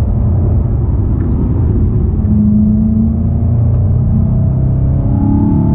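Golf VII GTI Performance's turbocharged 2.0-litre four-cylinder engine and road rumble, heard from inside the cabin on a track lap. The engine note holds fairly steady, then rises in pitch near the end as the car accelerates.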